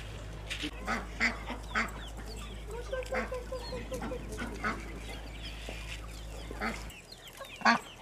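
Farmyard poultry calling: ducks quacking and chickens clucking, with a quick run of quacks about three seconds in and one loud call near the end.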